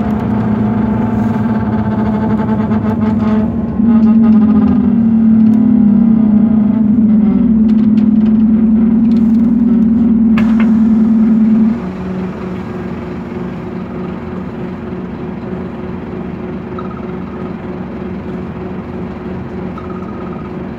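Running noise of a 2009 Scania K230UB city bus heard from inside the cabin: a loud, steady droning hum that grows louder about four seconds in, holds at one pitch, then drops sharply about twelve seconds in to a quieter hum. A single click comes about ten seconds in. The bus is described as broken, with the fault unknown to its owner.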